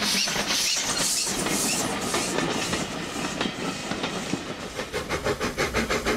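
LB&SCR Terrier 0-6-0 tank steam locomotive working past with regular exhaust beats, about two a second. Then its vintage coaches roll by, and from about five seconds in their wheels click over the rail joints in a quick, even rhythm.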